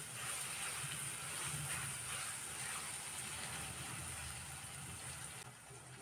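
Onions and tomatoes sizzling in hot oil in a steel wok as they are stirred with a silicone spatula. The sizzle drops off near the end.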